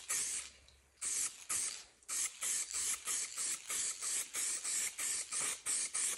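Aerosol spray-paint can hissing in short bursts as the second, final colour coat goes onto car door handle parts. The bursts are sparse at first, then come about twice a second.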